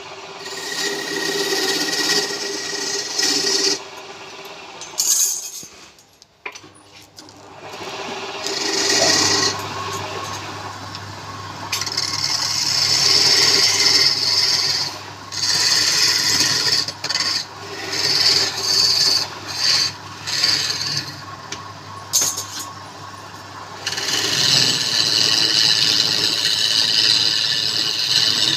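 A tool or abrasive rubbing and scraping against wood spinning on a woodturning lathe, in stretches of a few seconds with short breaks, over a steady low motor hum.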